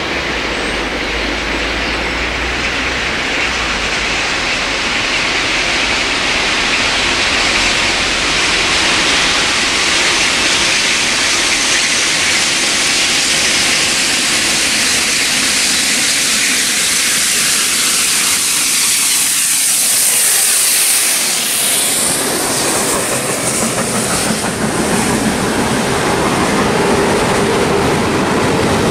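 GWR Castle class 4-6-0 steam locomotive No. 7029 Clun Castle approaching at speed and passing about two-thirds of the way through, with steam hiss. Its train of coaches follows with wheels clattering over the rail joints.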